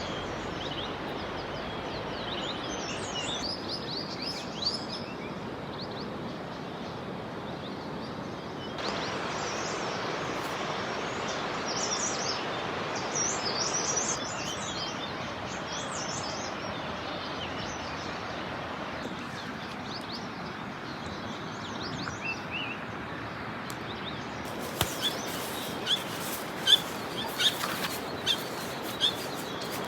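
Birds chirping and calling over a steady background hiss, with a run of sharp clicks or taps near the end.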